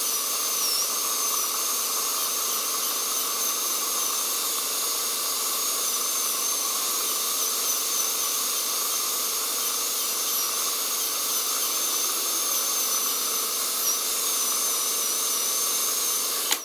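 Dental drill running with a dental suction aspirator: a high, thin whine that wavers slightly in pitch over a steady hiss. It cuts off suddenly at the very end.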